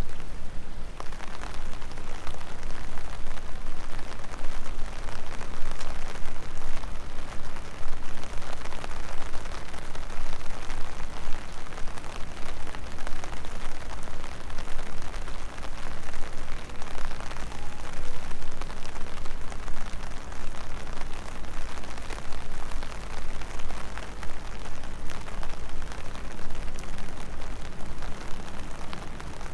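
Steady rain pattering, dense fine drops heard close to the microphone, over a low steady rumble.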